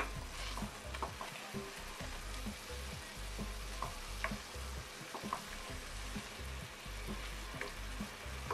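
Spinach, mushrooms, onions and eggs sizzling in a nonstick frying pan while a wooden spatula stirs and scrapes through them, with scattered light clicks of the spatula against the pan.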